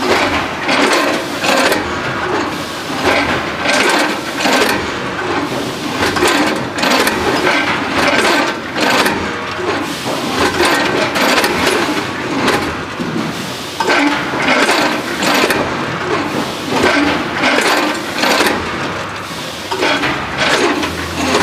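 Automatic food packaging machine running, a continuous mechanical clatter with repeated knocks about one or two a second.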